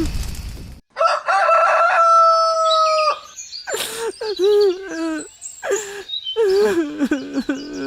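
A rooster crowing: one long call that rises and then holds steady for about two seconds, followed by a run of short pitched calls. Under a second in, a noisy stretch with a voice over it cuts off.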